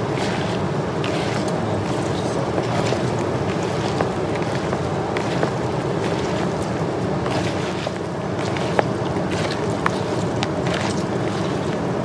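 Steady rush of a flowing river, with soft wet squishes, rustles and small clicks of a bare hand mixing a chopped onion and herb salad in a plastic bowl.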